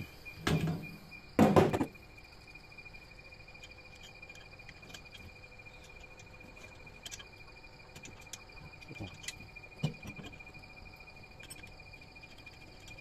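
Two loud metal knocks near the start as steel parts of a homemade sliding tile-cutter carriage and its bracket are handled and set in place, then a few faint clicks and taps of the metal parts being fitted. A steady high insect buzz runs underneath.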